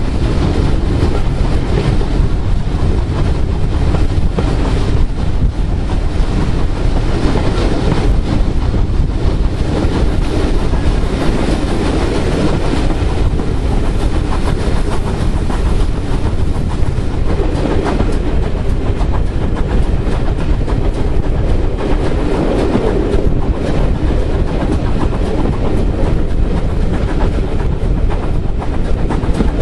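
Passenger coaches of a steam-hauled heritage train running along the line, a steady loud rumble of wheels on rails with frequent clicks, heard from an open carriage window.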